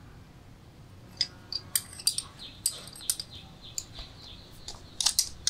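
Irregular sharp metallic clicks and scrapes of a flat screwdriver levering a circlip onto the steel gear shaft of a Minsk motorcycle gearbox, with a quick cluster of clicks near the end.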